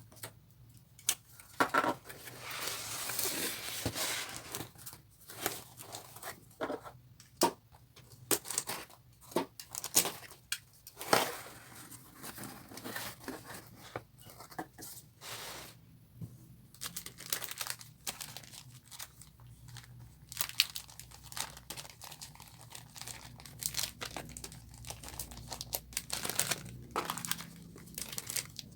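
Packaging being torn open and crumpled by hand: a longer tear a couple of seconds in, then scattered crinkling and sharp crackles.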